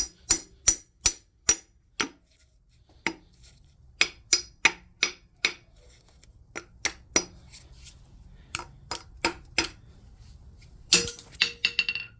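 Hammer blows on a steel rod, driving a seized, broken distributor up out of a Ford 351M engine block: sharp metallic strikes in runs of several, about two to three a second, with a louder, ringing cluster near the end.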